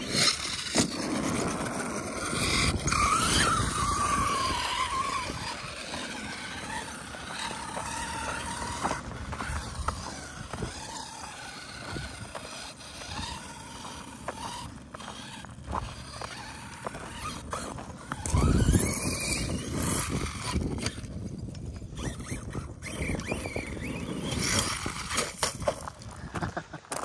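Arrma Kraton 6S radio-controlled truck driving over loose gravel, its electric motor whining up and down in pitch with the throttle over the crunch and spray of its tyres in the stones. It is loudest in bursts near the start and about two-thirds of the way in.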